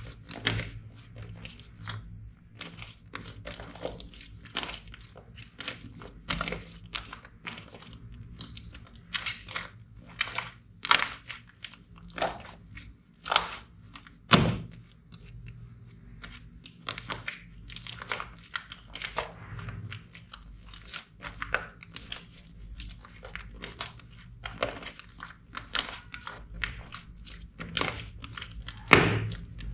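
Slime being squeezed and pressed by hand close to the microphone, giving dense, irregular crackling clicks and pops with a crunchy texture.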